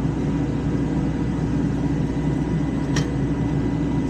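Steady low rumble of an idling engine, with a single sharp click about three seconds in.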